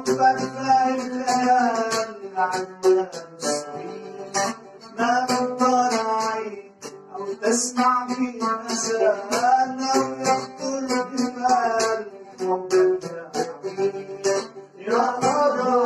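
Two ouds played together, accompanying a man singing an Arabic song.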